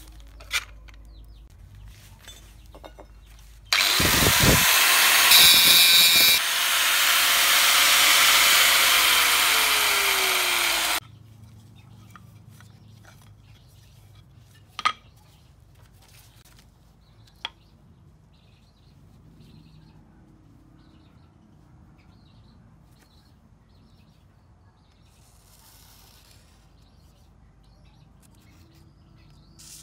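A power tool runs loud for about seven seconds, starting a few seconds in and cutting off suddenly, its pitch falling in the last couple of seconds. Before and after it there are only light handling sounds with a few sharp clicks.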